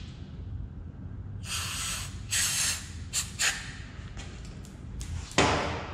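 Aerosol spray can hissing in several short bursts, the last one the loudest, as solvent is sprayed into a freshly tapped thread hole in an engine case to flush out the metal shavings.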